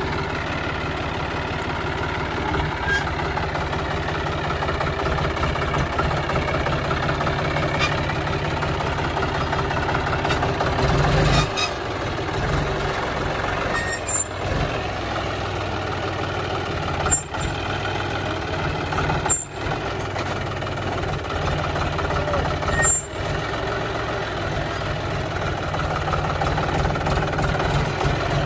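John Deere tractor's diesel engine running steadily under load as the tractor crawls through deep mud ruts, with a few brief knocks and jolts along the way.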